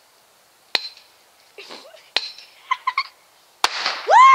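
A cap struck with a hammer on a concrete sidewalk: two light taps, then a sharp bang near the end. A loud yell falling in pitch follows at once.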